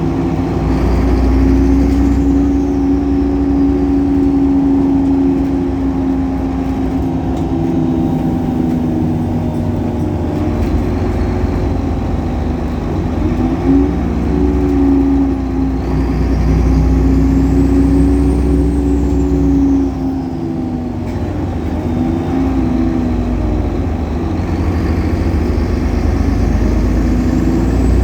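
Solaris Urbino 18 articulated city bus under way: its DAF Paccar PR265 six-cylinder diesel runs steadily through the ZF Ecolife automatic gearbox, with the engine note shifting a few times. A faint high whine rises and falls twice.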